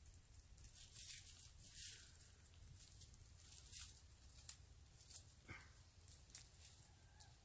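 Near silence with faint, scattered crackles from a small wood campfire burning on the ground.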